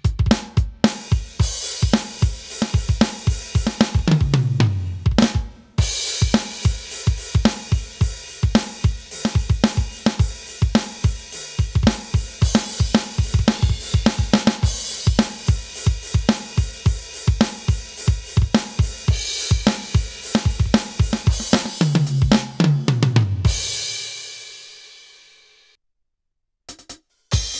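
Aroma TDX-25 electronic drum kit played on its 'Metal Studio' preset: a driving beat on bass drum, snare, hi-hat and cymbals, with tom fills running down in pitch. It ends on a cymbal crash that dies away, and after a brief silence playing starts again near the end.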